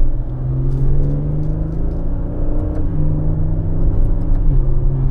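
Maserati Ghibli S's twin-turbo V6 and exhaust under acceleration, heard from inside the cabin. The engine note climbs steadily in pitch, then drops suddenly near the end as the gearbox shifts up. A rich sound the driver calls really good.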